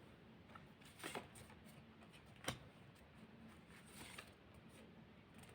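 Near silence with a few faint rustles and taps of tarot cards being handled, the clearest about a second in and about two and a half seconds in.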